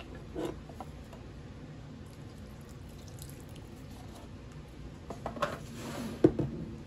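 Silicone spatula stirring wet, sticky bread dough in a ceramic bowl: soft squelching and scraping, with a few scrapes and knocks against the bowl from about five seconds in, the sharpest a little after six seconds.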